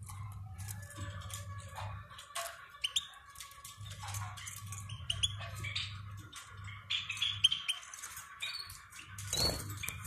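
Caged European goldfinches chirping: many short, high chirps in an irregular stream, over a low hum that comes and goes.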